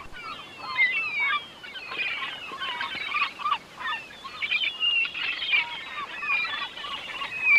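A flock of birds calling: many short, overlapping squawks and chirps, continuous and busy.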